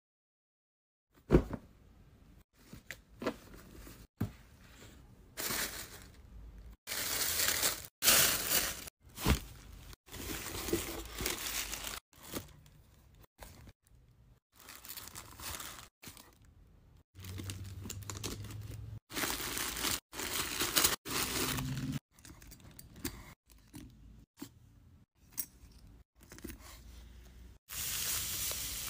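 Paper packaging handled during an unboxing: tissue or wrapping paper rustling, crinkling and tearing in a series of short bursts with brief pauses between them, starting about a second in.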